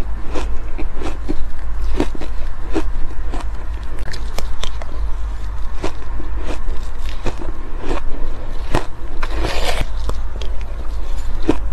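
Close-up mouth sounds of someone chewing soft, powdery crushed ice: a run of irregular crisp crunches, about two a second, with a brief hiss about four-fifths of the way in.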